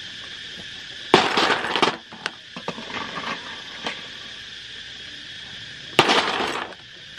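Cooked snails in their shells tipped from a metal spoon onto a metal tray, the shells clattering and clinking against the metal. This happens twice, about a second in and again near the end, with a few lighter clicks in between.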